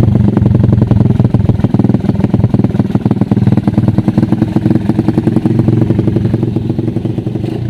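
Small single-cylinder motorcycle engine running through a 51mm open (straight-through) VMAX exhaust pipe, a loud, steady train of exhaust pulses, growing gradually quieter near the end.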